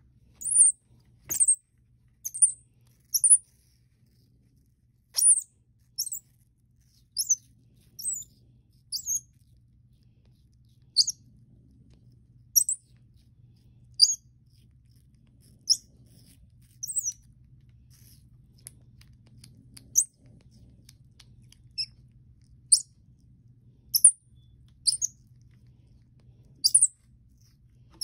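Baby common squirrel monkey giving short, high-pitched chirps, about one a second, some in quick pairs.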